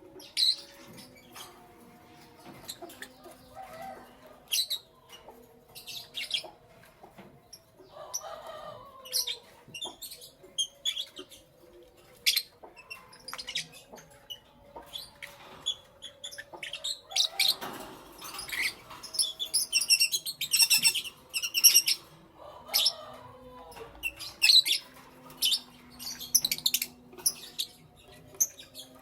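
Lovebirds chirping: many short, sharp, high chirps in irregular flurries, thickest past the middle, over a faint steady hum.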